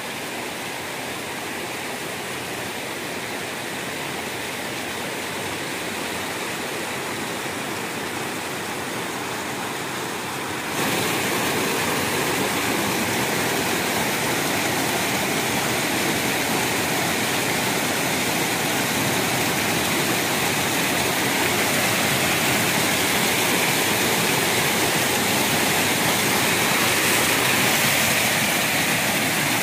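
Shallow river rushing over rocks: a steady roar of water that gets suddenly louder about eleven seconds in.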